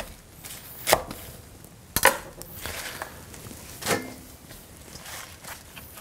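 Kitchen knife chopping lettuce on a wooden cutting board: four sharp knocks of the blade on the board, spread over the first four seconds.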